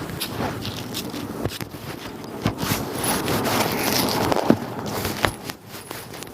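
Irregular scraping and rustling with scattered sharp clicks, louder in the middle stretch, as of clothing or handling noise while walking.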